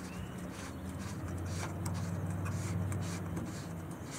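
Faint rubbing and scraping of a removal tool turning the plastic battery desiccant filter on a Smart fortwo electric drive. Under it runs a low hum that swells toward the middle and then fades.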